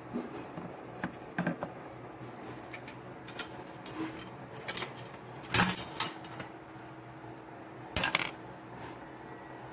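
Small tools and parts clinking and knocking as they are handled at a workbench, in scattered short clicks, the loudest about halfway through and again near the end, over a faint steady hum.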